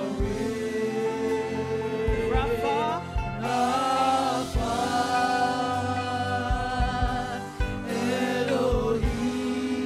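Gospel praise choir singing a worship song with instrumental backing. The voices hold long, wavering notes, with low drum thumps underneath.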